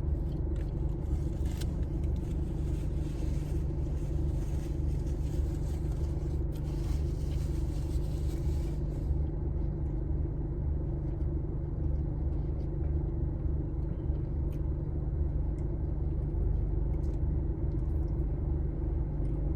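Steady low rumble of a car engine idling, with a faint hiss above it that stops about halfway through.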